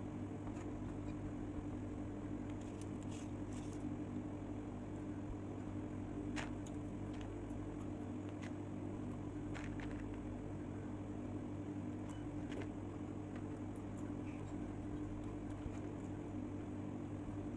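Steady low hum of a kitchen exhaust hood fan, with scattered faint clicks and crinkles of aluminium foil as food is picked from it by hand.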